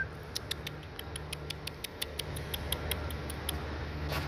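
A rapid run of sharp, high clicks, about six a second, starting about half a second in and stopping about a second before the end, with one louder click near the end. Underneath is a steady low rumble of road traffic.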